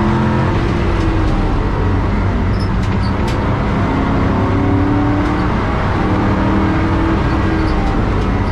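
Onboard sound of a track car's engine under hard driving, heard inside its bare, caged cabin: a loud, steady engine note whose pitch rises and falls as the driver accelerates and lifts, over low tyre and road rumble.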